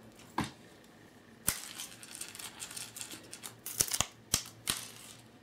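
Several short, sharp clicks and taps, spaced irregularly, with four coming in quick succession a little before the end.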